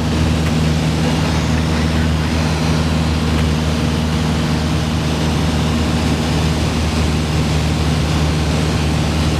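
Piper PA-28-161 Warrior's four-cylinder Lycoming engine and propeller running steadily in flight, heard from inside the cockpit as an even drone.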